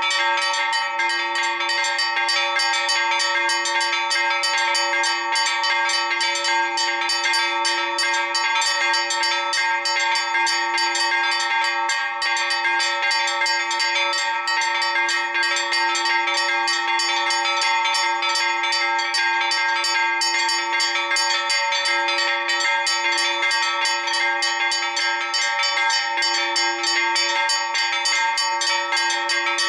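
Four church bells rung together in a Maltese festa peal (mota) called before the High Mass. The strikes are rapid and unbroken, and the bells' tones ring on beneath them.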